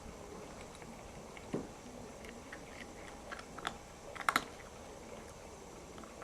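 Cat eating from its food dish: scattered faint crunchy clicks of chewing, with a quick cluster about four seconds in the loudest.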